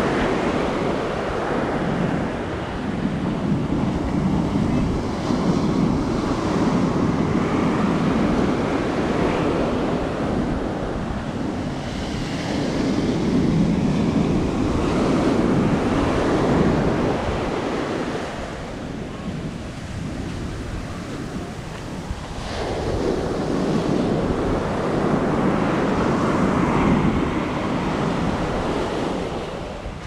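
Atlantic surf breaking and washing up a sandy beach, a steady rush that swells and eases with each wave, quieter for a few seconds about two-thirds of the way through. Wind buffets the action-camera microphone underneath.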